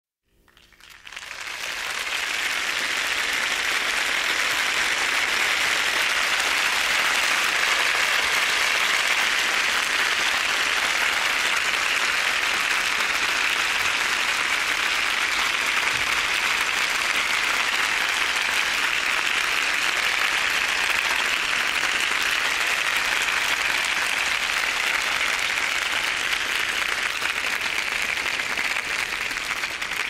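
Audience applauding: dense, steady clapping from many hands that swells in over the first couple of seconds and begins to die away near the end.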